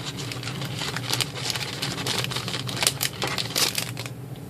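Loopdeloom's white plastic loom pegs clicking and clacking against each other as a handful is slid out of a rustling clear plastic bag, with a few sharper clacks about three seconds in.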